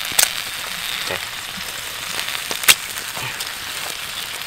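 Whole small crabs sizzling in a hot wok over a wood fire, a steady hiss, with two sharp pops about two and a half seconds apart.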